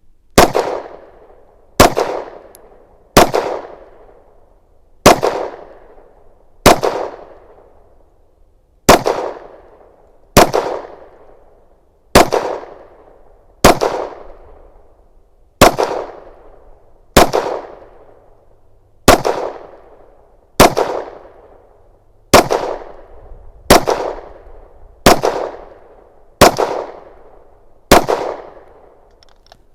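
Canik METE SFT 9mm pistol fired in slow, aimed single shots, eighteen in all, spaced about one and a half to two seconds apart, emptying an 18-round magazine. Each shot is a sharp crack with a ringing echo trailing off for about a second.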